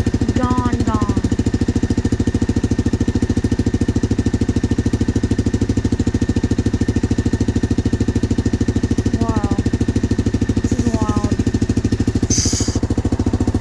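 Yamaha Grizzly ATV's single-cylinder four-stroke engine idling steadily with an even, rapid putter. A few short wavering calls sound over it, and a brief hiss comes near the end.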